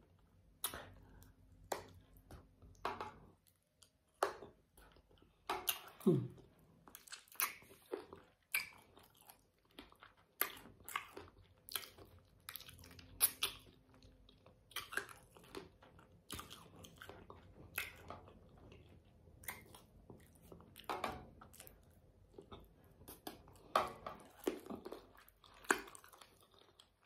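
Close-miked chewing of spicy sauced chicken feet: irregular wet clicks and crunches as the small bones and cartilage are bitten and worked through, with no speech.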